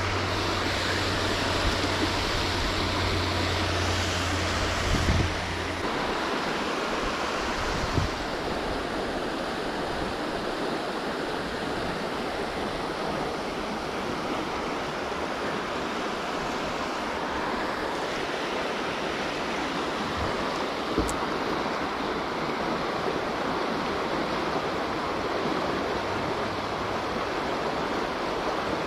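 Steady rush of flowing water, with a low hum underneath that stops about six seconds in.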